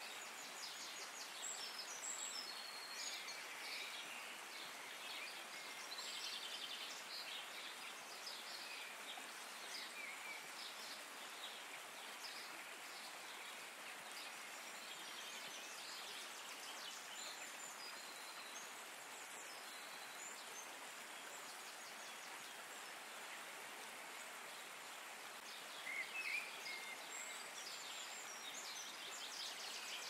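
Nature ambience: a steady rushing hiss with small birds chirping and trilling on and off, and a louder burst of calls near the end.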